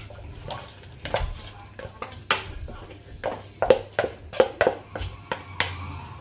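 Chopped smoked turkey tipped from a bowl into a metal roasting dish of rice, with irregular soft knocks and clatters as the pieces drop and the bowl meets the dish.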